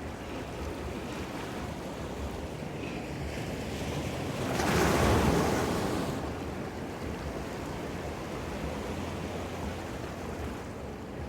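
Ocean surf washing ashore, with one wave breaking louder about halfway through and then fading back into the steady wash.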